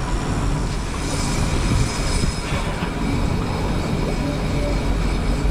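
Boat's outboard engines running steadily under way, with a low rumble and a rush of wind and water.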